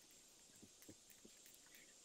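Near silence with faint, scattered clicks of small plastic LEGO Technic parts being handled and sorted in a pile.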